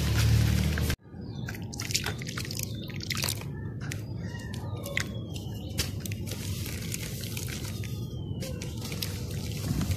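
Balls of dry dirt and sand crumbling and fizzing in water: scattered small crackles, pops and drips. Background music plays for about the first second, then cuts off abruptly.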